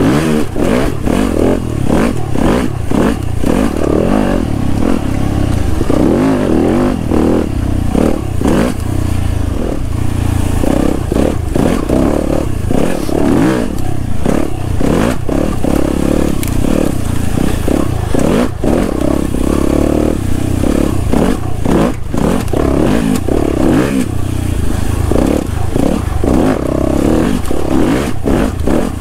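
Yamaha YZ250FX dirt bike's four-stroke single-cylinder engine running under load, revs rising and falling with the throttle, with frequent knocks and rattles from the bike bouncing over the bumpy, whooped-out trail.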